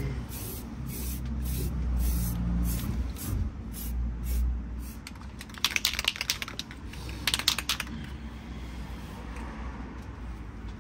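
Paint spraying with a steady hiss, and two short bursts of rapid clicking a little past halfway.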